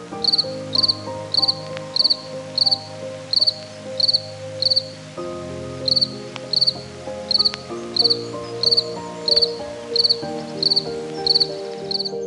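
Crickets chirping in a steady rhythm, about two short high chirps a second, with a brief pause about five seconds in. Soft background music plays underneath.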